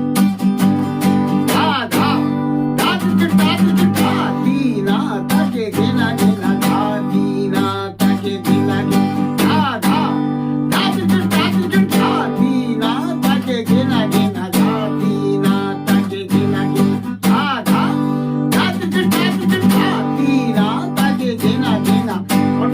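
Acoustic guitar strummed in a steady rhythmic pattern, with short melodic fill runs played between the chords.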